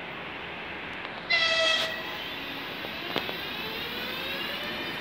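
VL11 electric locomotive sounding one short horn blast about a second and a half in, over the steady noise of the approaching freight train. Afterwards a faint whine slowly rises in pitch as the locomotive draws closer.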